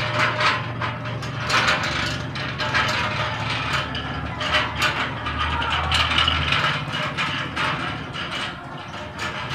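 Irregular crackling and clicking of monofilament fishing line being handled and knotted right at the microphone, thinning out near the end, over a steady low hum.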